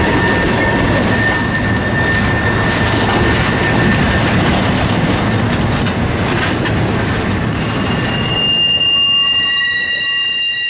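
Freight cars of a CSX train rolling past close by: a steady heavy rumble and clatter of steel wheels on rail. Near the end the rumble drops away and a steady high-pitched squeal takes over.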